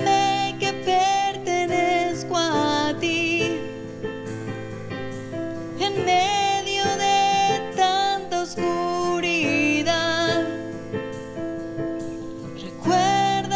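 A woman sings a Spanish worship song over keyboard chords, with a drum played lightly with sticks.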